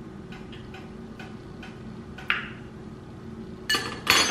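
Faint scattered ticks and pops from tomato sauce simmering in a skillet on an electric coil stove. About two seconds in there is a louder click, and near the end two loud sharp sounds come close together.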